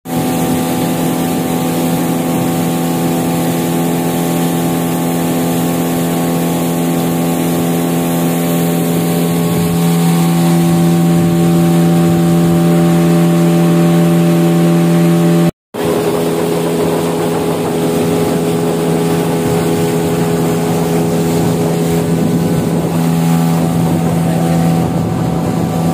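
Small boat's engine running at steady cruising speed, a loud even drone over the hiss of rushing water and wind. The drone shifts slightly in pitch midway and cuts out for a split second partway through.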